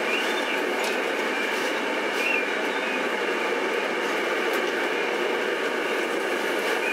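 Steady running noise inside a moving bus, with faint rattles and small squeaks from the door and interior fittings.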